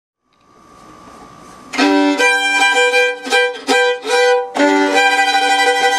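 A violin played with a bow: a short phrase of sustained notes that starts about two seconds in, with brief breaks between notes.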